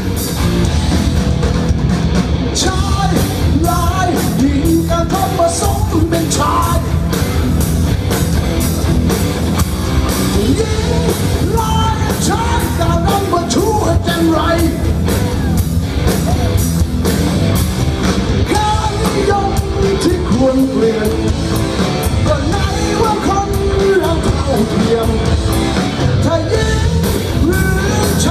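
Rock band playing live: a lead singer over electric guitars, drums and keyboard, through a concert sound system, recorded from among the audience.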